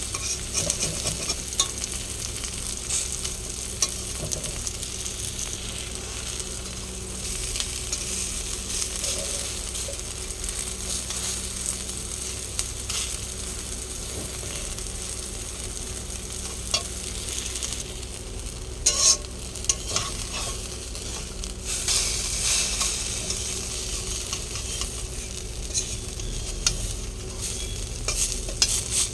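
Grated bottle-gourd pancake batter sizzling as it fries in oil in a pan, with scattered clicks and scrapes of a utensil against the pan, in a cluster a little past the middle.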